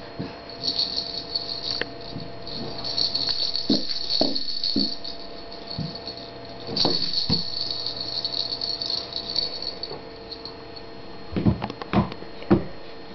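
Baby's handheld plastic toy rattle being shaken, its beads rattling in three long spells with short knocks in between. A few louder thumps come near the end.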